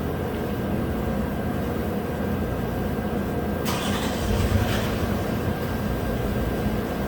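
Toyota RAV4's 3.5 L V6 cranked by the starter and catching a little under four seconds in, then running. It is a restart after a ten-minute soak, and the engine misses a couple of times on this initial start, on cylinders two and four, which the mechanic wonders may be coolant getting into those cylinders.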